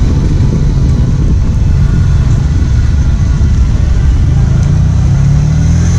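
Street traffic: motor vehicle engines running close by, with an engine hum rising slightly in pitch near the end.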